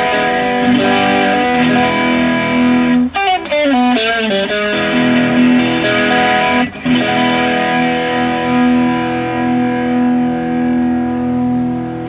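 Electric guitar, a modified Fender Japan ST54-95LS Stratocaster on its front-and-middle pickup half position, played with mild overdrive: held chords left to ring, with a short run of bent notes about three seconds in.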